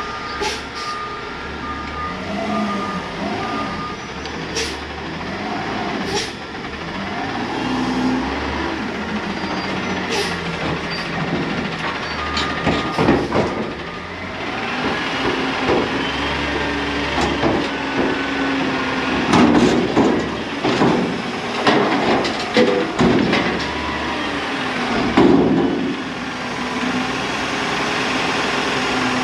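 Peterbilt front-loader garbage truck working a dumpster: its diesel engine runs and revs as the hydraulic forks lift, with reversing beeps in the first few seconds and sharp metal clanks and bangs from the container through the second half.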